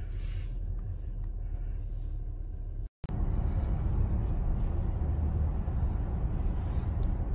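Steady low road and engine rumble heard inside a moving car's cabin. The sound drops out for a moment about three seconds in, where the recording is cut, and resumes a little fuller.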